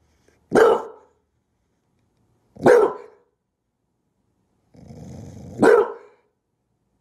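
English bulldog barking three times, about two seconds apart, with a low growl just before the third bark.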